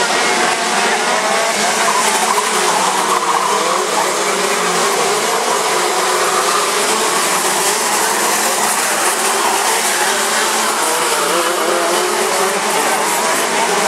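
A pack of KZ125 shifter karts racing past, their 125 cc two-stroke engines running at high revs, many overlapping engine notes rising and falling.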